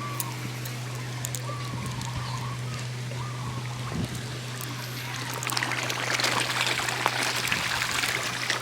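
Water trickling and splashing, growing louder and denser from about five and a half seconds in.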